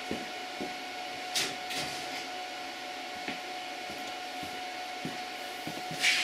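Brief handling noises on a workbench: a short rustling scrape about a second and a half in and a louder one near the end, with a few small clicks, over steady room hum and a faint steady whine.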